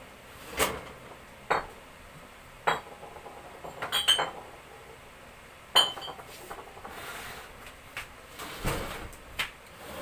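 Glass soft-drink bottles clinking and knocking against each other as they are shifted and set in place in their cases: a series of separate sharp clinks, two of them with a brief ringing tone, and a short shuffling noise near the end.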